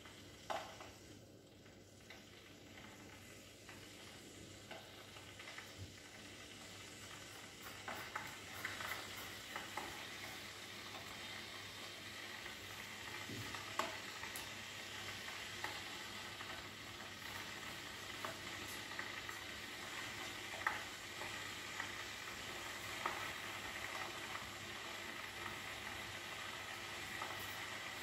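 Maunfeld MFK-622BG stainless-steel electric kettle (2150 W) heating a minimum fill of water toward the boil. A hiss with scattered ticks and crackles grows steadily louder.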